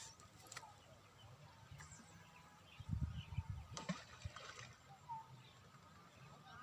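Quiet open-air background with a few faint bird chirps, and a low muffled rumble lasting about a second and a half, starting about three seconds in.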